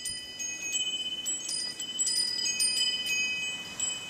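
Metal wind chimes jingling in the wind: many high ringing tones struck at irregular moments, overlapping as they ring on.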